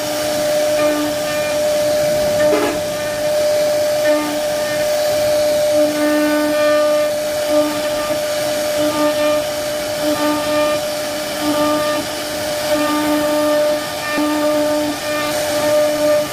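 CNC wood-carving router running: a steady high whine, with a lower tone that keeps starting and stopping as the machine moves, over a continuous hiss.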